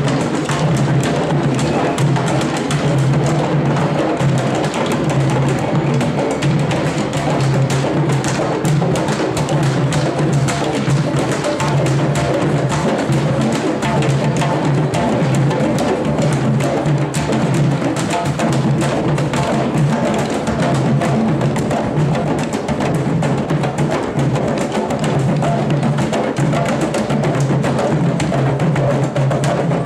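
Uruguayan candombe drum ensemble: barrel drums played with one stick and the bare hand, in a dense, steady interlocking rhythm full of sharp stick strokes.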